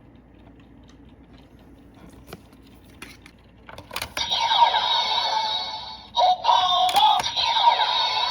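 A few faint plastic clicks, then about four seconds in the PREMIUM DX Memorial Gotchar Igniter toy starts playing loud electronic music and sound effects with sweeping tones and a synthesized voice.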